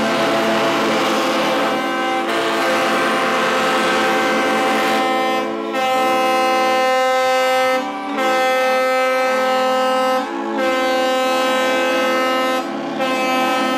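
Many yachts' horns blowing at once, long overlapping blasts at several different pitches. A few times some horns break off briefly while others keep sounding.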